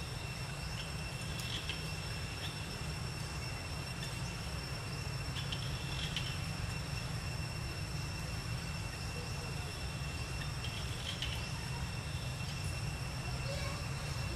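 Steady outdoor ambience: a constant low rumble under a thin, steady high insect drone, with a few brief faint chirps.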